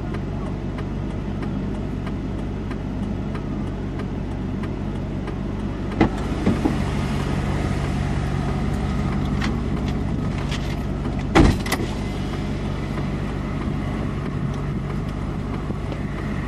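Vehicle engine idling steadily with a low, even hum. Two sharp knocks come about six and about eleven seconds in.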